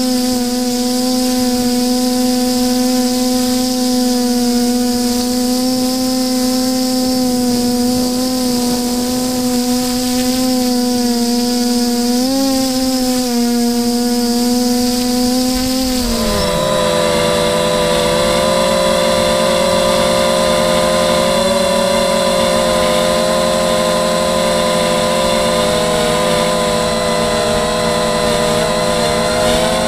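Steady whine of a small electric model aircraft's motors and propellers, heard from its onboard camera. The pitch holds mostly level with a brief wobble about twelve seconds in. About halfway through it drops away and a different, busier mix of whines takes over.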